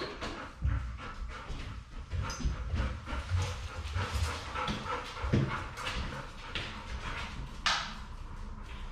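Golden retriever making sounds and moving about close by: irregular rustling with soft, low bumps scattered throughout.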